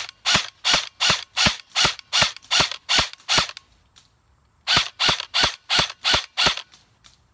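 King Arms M4A1 airsoft electric gun (AEG) firing single shots in quick succession, about three a second: a string of about ten, a pause of about a second, then six more.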